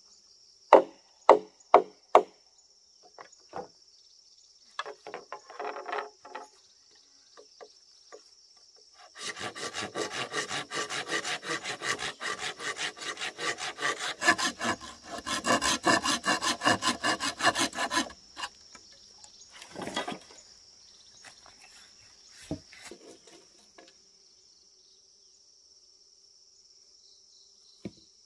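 Wood being worked by hand: three sharp knocks near the start and a few scattered taps, then about nine seconds of fast, even back-and-forth strokes like a hand saw cutting, with crickets chirring steadily behind.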